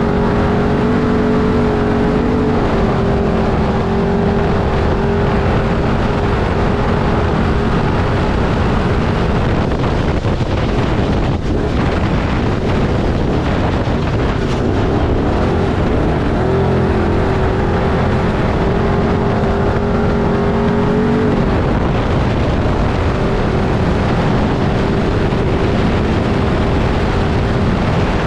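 Off-road race vehicle's engine running hard at a steady high speed, over a constant rushing noise. The engine holds an even pitch for several seconds at a time and turns rougher and less even for a few seconds near the middle.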